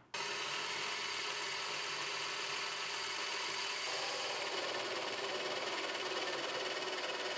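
Bosch benchtop drill press running steadily as a Forstner bit bores a hole into plywood.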